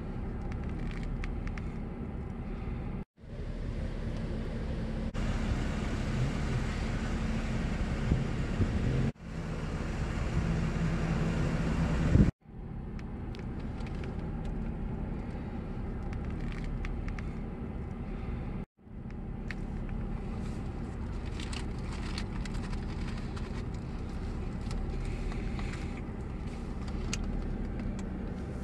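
Steady low rumble of road traffic heard from inside a parked car. It cuts off abruptly four times and resumes, with a louder stretch in the first half.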